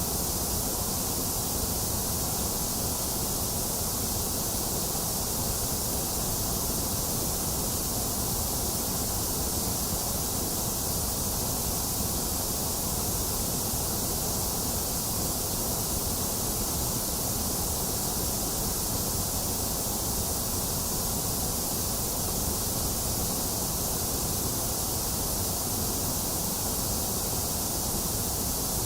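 Box fan running steadily together with falling rain, making a constant, unchanging hiss with a low rumble beneath.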